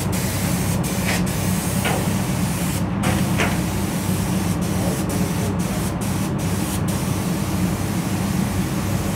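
Automotive paint spray gun hissing as it sprays a car body, over a steady low hum. The hiss breaks off briefly several times.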